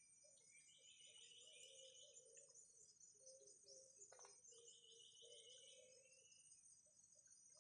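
Faint outdoor ambience: a steady high insect buzz, with two pulsed chirping trills, one about a second in and one about three seconds in, and a low warbling call underneath. A single click sounds about four seconds in.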